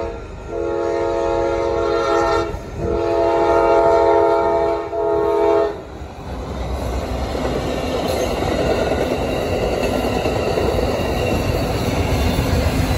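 Amtrak passenger train's GE Genesis diesel locomotive sounding its multi-note air horn in two long blasts and a shorter one. About six seconds in the horn stops and the train speeds past close by: a steady rush of engine and wheel-on-rail noise from the locomotive and bilevel coaches.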